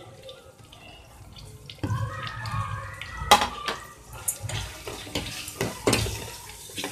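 Spoon stirring spice powders into frying masala in a steel pot, with sharp knocks and scrapes of the spoon against the pot over a sizzling hiss. The stirring starts about two seconds in, after a quieter start.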